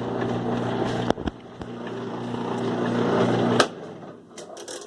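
Kenmore 70 Series direct-drive washing machine agitating: the motor and transmission run with a steady low hum, stop briefly after a sharp click about a second in, run again, then cut off abruptly with a click, followed by a few light clicks.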